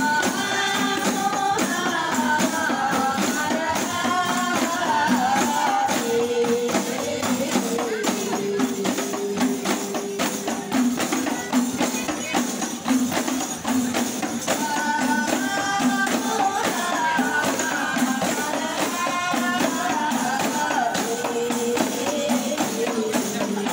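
A group of rebana frame drums beaten together in a steady, even rhythm, with voices singing a melody over them; the sung phrase comes once near the start and again about fifteen seconds later.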